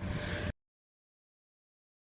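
A brief steady background hum of room noise, which cuts off suddenly about half a second in to complete silence as the recording ends.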